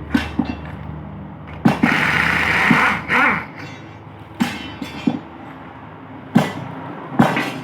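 Metal knocks and clanks, about six sharp hits spread across several seconds, from tools and parts as a truck's steering box is taken apart. A rushing hiss lasts about a second and a half near the start, and a low hum stops about halfway through.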